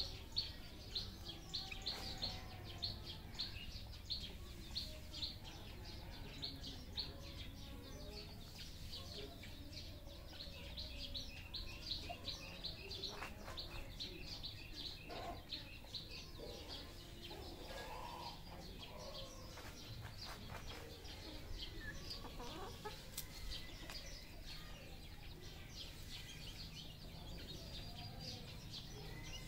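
Red junglefowl clucking, with a fast run of high chirps, several a second, that thins out about halfway through.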